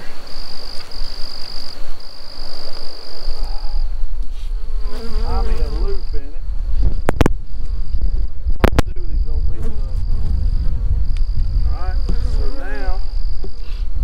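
Honeybees buzzing close to the microphone, their pitch wavering as they circle, over a steady high insect trill that breaks off briefly now and then. Two sharp clicks about a second and a half apart come near the middle, with a low rumble underneath.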